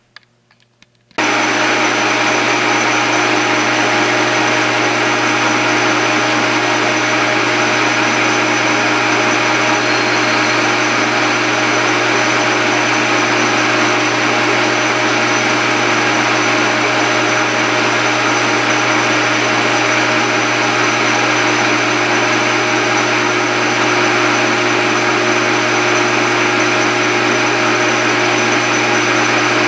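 Small benchtop metal lathe running steadily, turning a 3/8-inch mild steel rod with light cuts. It comes on suddenly about a second in: a steady motor and gear hum with several steady tones over it.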